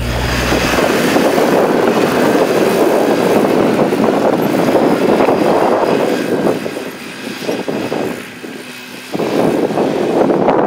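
ATV engine running hard as a quad climbs a steep rocky trail to the summit, easing off about seven seconds in and picking back up near the end.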